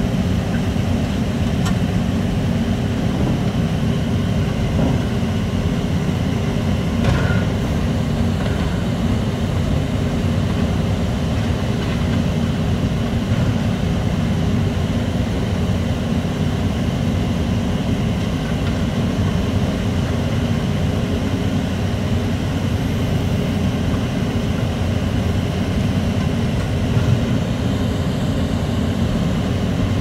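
Steady low drone of heavy diesel machinery running: the Nippon Sharyo DH608-120M crawler pile-driving rig working alongside an excavator, with a couple of faint knocks and no regular hammer blows.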